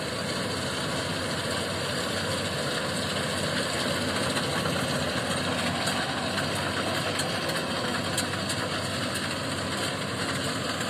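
Rice combine harvester running steadily, its engine and threshing machinery making a dense, even drone.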